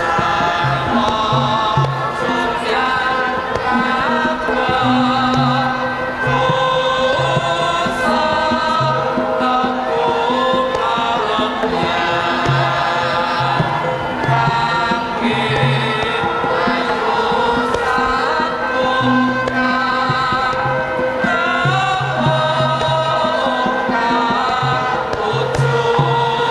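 Javanese gamelan dance music, with a group of voices singing over the ensemble and low notes repeating beneath.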